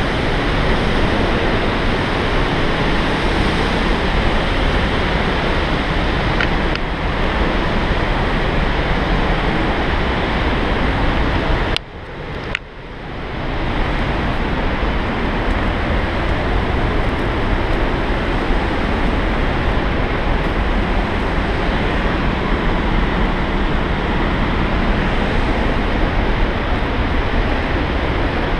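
Steady roar of rushing water from the mountain stream and waterfalls in the gorge below. It drops away sharply for about a second near the middle, then swells back.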